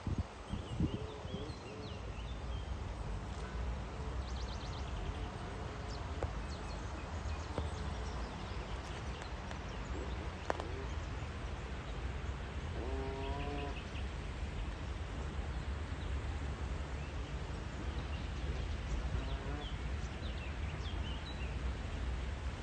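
Rural outdoor ambience: a steady low background noise with scattered faint bird chirps. A short animal call sounds about halfway through, and a weaker one follows a few seconds later.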